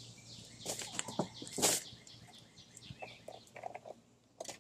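A walk-behind lawn mower being tipped onto its side: a few knocks and scrapes from its plastic and metal body in the first two seconds, the loudest about a second and a half in, then lighter clicks and a sharp click near the end.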